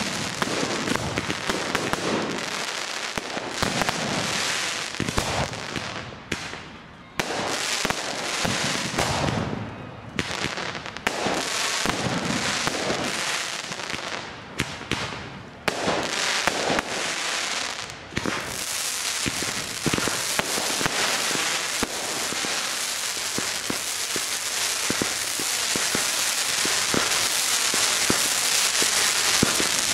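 Fireworks display going off: bangs and crackling bursts in quick succession, with two brief lulls. From about two-thirds of the way through, a dense, continuous crackle with bangs through it.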